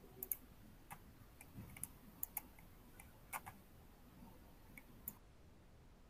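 Faint room tone with about a dozen light, irregular clicks spread over the first five seconds, stopping about a second before the end.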